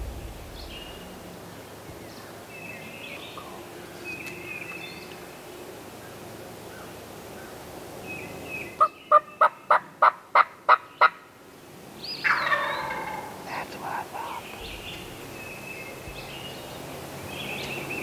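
A run of about eight loud, evenly spaced turkey yelps, then about a second later a wild turkey tom gobbles in answer. Songbirds chirp faintly throughout.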